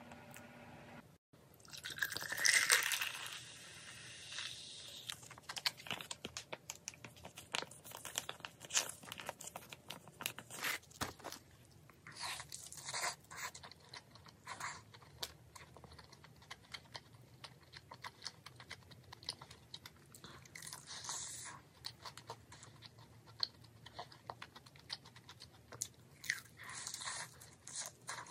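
Close-up crunching and chewing of crispy fried chicken, a run of sharp crackles from each bite. The loudest noise, a longer crackling burst, comes about two seconds in.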